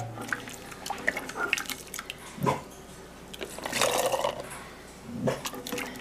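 A ladle scooping cooked beans and their liquid from an enamel pot and pouring them through a plastic funnel into a glass canning jar: liquid splashing and dripping, with clinks of the ladle, the main pour about four seconds in.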